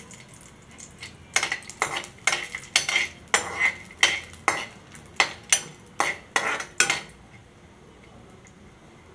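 Metal spatula scraping and stirring pieces of dried coconut around a metal kadhai as they roast in a little oil. It makes sharp scrapes two or three times a second and stops about seven seconds in.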